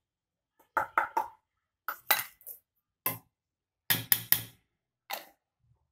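Clinks and knocks of a steel cup tapped against the rim of a stainless steel mixer-grinder jar to shake flour into it, in short clusters with a quick run of three about four seconds in.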